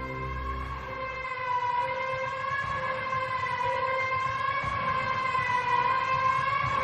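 A long held tone with overtones in the edited soundtrack, its pitch wavering slowly up and down like a siren. The backing music's low bass pulses drop out about a second in.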